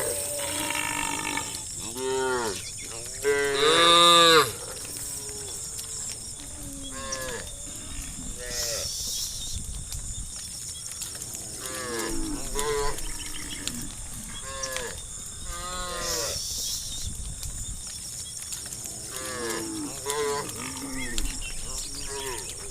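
A herd of cattle mooing, many overlapping calls one after another, some drawn-out and some short. The loudest call comes about four seconds in.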